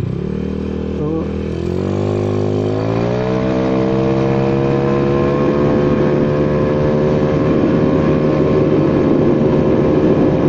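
Honda Vario 110 carburettor scooter engine, bored up to 55 mm (about 130 cc), accelerating at wide throttle. The engine note climbs quickly over the first three seconds, then holds nearly steady while the automatic transmission lets road speed keep rising, with wind rush building.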